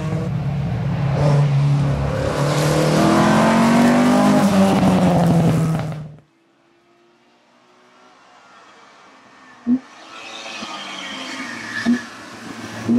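A rally car's engine at full throttle, rising in pitch as it passes. It cuts off abruptly about six seconds in. Then another rally car is heard approaching, growing louder, with three sharp pops near the end.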